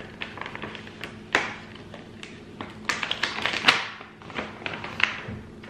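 Resealable plastic beef jerky pouch being pulled open, crinkling with irregular sharp crackles and clicks, busiest about three to four seconds in.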